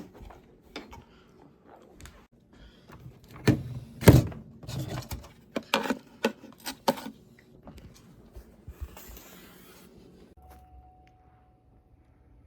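A series of knocks and thumps, the loudest about four seconds in, followed by a brief rustle and a faint steady tone near the end.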